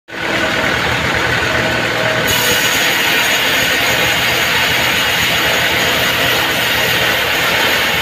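Vertical band sawmill running steadily, its blade cutting lengthwise through a mahogany log. The sound turns brighter and hissier about two seconds in.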